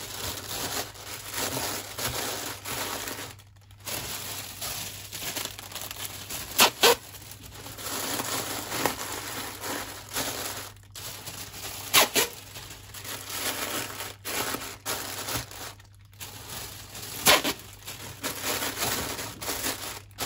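Plastic air-pillow packaging crinkling and rustling as it is torn off its strip and pressed into a cardboard box, with a few sharp, louder crackles.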